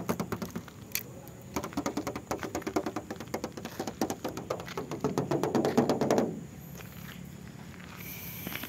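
Knuckles tapping quickly on the sheet-metal body panels of a 1996 Mazda Familia Lantis, a dense run of light knocks that stops about six seconds in. The panels sound like tin ('masih kaleng'): still thin bare metal, not built up with filler.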